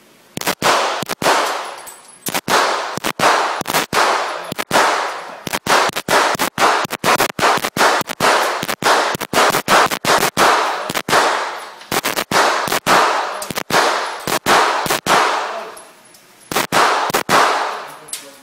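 Pistol shots fired in a long string, roughly two a second with a few short pauses, each crack followed by a long echoing reverberation off the walls of the indoor range.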